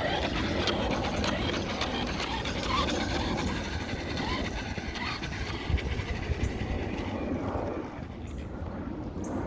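Traxxas Rustler 4x4 VXL RC truck being driven: its motor and drivetrain running with a steady rumble and frequent rattles and clicks from the chassis. It eases off about eight seconds in.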